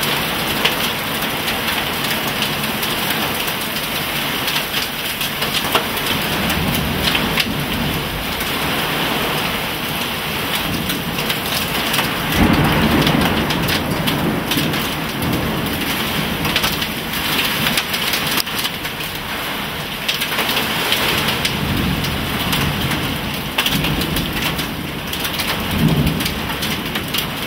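Hurricane-force macroburst wind driving heavy rain through trees: a loud, continuous rushing roar, with deeper gusts swelling several times.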